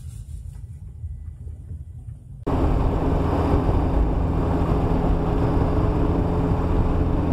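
A faint low rumble for about two and a half seconds, then an abrupt cut to car cabin noise picked up by a dash cam while driving: an engine running steadily under loud tyre and road noise.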